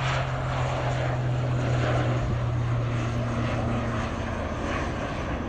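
Loganair ATR twin-turboprop airliner climbing out after takeoff. A steady low propeller hum sits over the rush of the engines and fades out about four seconds in.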